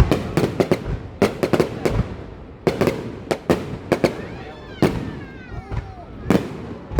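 Fireworks going off: a rapid run of sharp bangs from bursting shells, a few each second, irregularly spaced.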